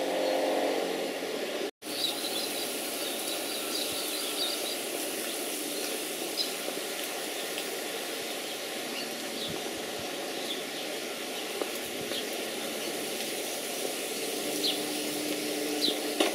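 Outdoor background noise: a steady hiss with faint, short, high chirps now and then. It cuts out for an instant about two seconds in.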